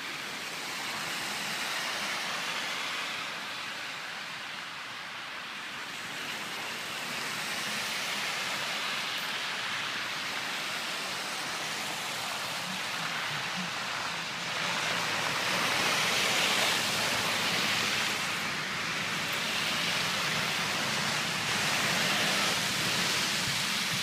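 Cars passing on a slushy, snow-covered road: a steady hiss of tyres through wet snow, swelling louder twice in the second half as vehicles go by.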